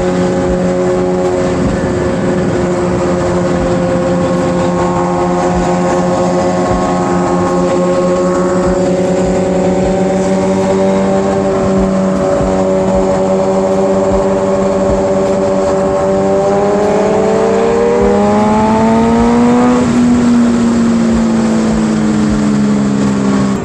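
Sport bike's engine running at a steady cruise with an even drone. Its pitch climbs a little about three-quarters of the way through, then eases down near the end, with wind noise over the microphone.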